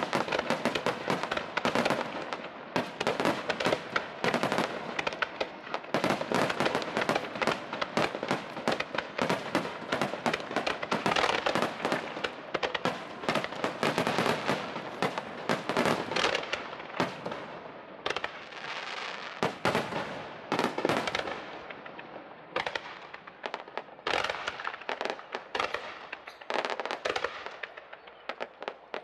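Aerial fireworks bursting in quick succession: a dense, rapid run of bangs and pops that thins out and grows quieter over the last several seconds.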